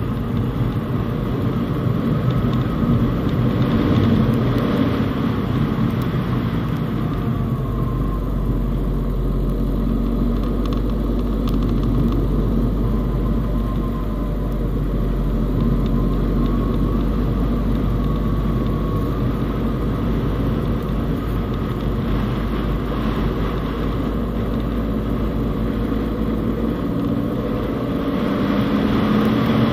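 Fiat Panda Cross driving on a snow-covered road: a steady engine note with a low rumble and tyre and road noise. The pitch rises and falls a little as the car takes the bends.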